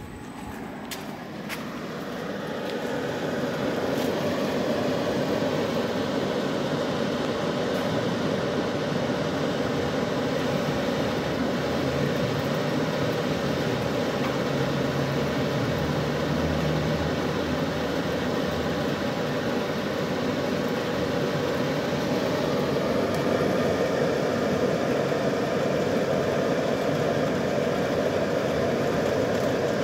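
Plasma torch of a CNC pipe-cutting machine cutting a circular hole through steel pipe: a steady rushing hiss that builds over the first few seconds, then holds level.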